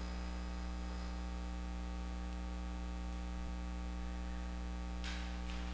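Steady electrical mains hum in the recording, a low drone with a ladder of even overtones above it. Two brief soft hisses come near the end.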